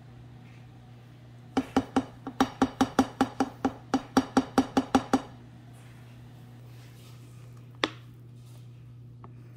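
A utensil tapping against a glass mixing bowl: a quick, even run of about sixteen ringing clinks, four or five a second, then one more sharp click near the end, over a steady low hum.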